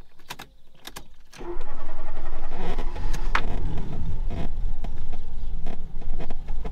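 A few light clicks, then about a second and a half in the starter motor begins cranking the 1991 Fiat Panda 4x4's four-cylinder petrol engine with the choke pulled out, churning steadily without catching. The engine is flooded.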